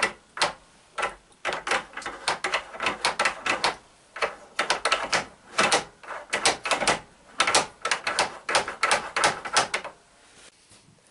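Rapid, irregular metallic clicking from a new Chevy starter drive being worked on the armature shaft to check that it moves freely; the clicking stops about ten seconds in.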